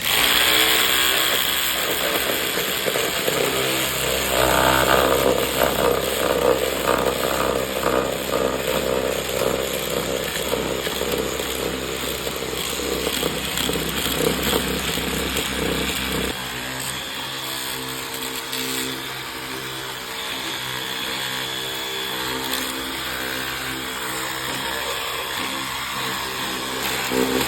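Saw cutting through wood with repeated rasping strokes, over a steady humming tone that changes pitch pattern about two-thirds of the way through.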